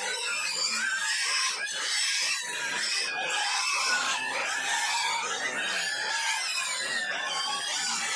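Piglets squealing and grunting without a break, many high-pitched overlapping calls.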